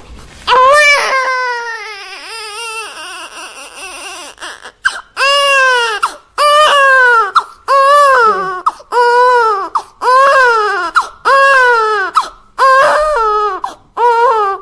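Infant crying hard: one long wail about half a second in that trails off into softer fussing, then a steady run of about eight short cries, each rising and falling in pitch, roughly one a second.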